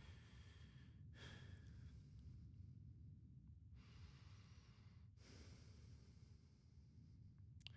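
Near silence: soft breaths, about a second each, picked up by a headset microphone over a steady low hum.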